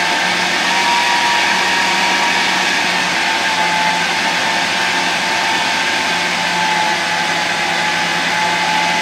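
Food processor running steadily with a constant high motor whine, puréeing frozen banana chunks that are nearly smooth and creamy.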